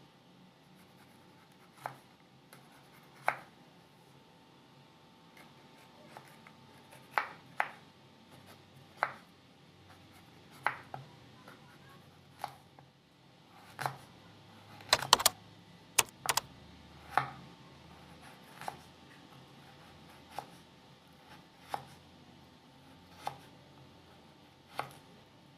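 Knife knocking against a wooden cutting board while slicing a chayote: single sharp knocks every second or two, with a quick run of several knocks about two-thirds of the way through.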